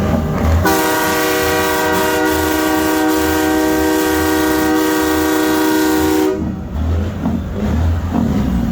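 A train horn blows one long blast of about five and a half seconds, a steady chord of several notes. It starts about half a second in and cuts off abruptly. A low engine rumble runs beneath it before and after the blast.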